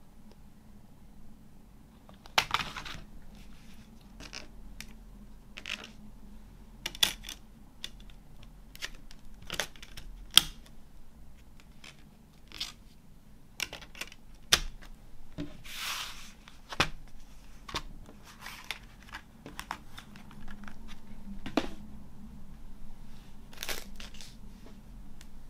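Hands handling a fold-out cardboard CD case with plastic disc trays: scattered sharp clicks and taps, with a few brief rustles of card and packaging.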